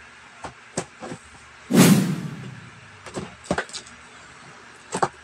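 Cardboard helmet box and its packaging being handled and opened by hand: a series of sharp clicks and crinkles, with one loud rustling thump a little under two seconds in, and more clicks near the end.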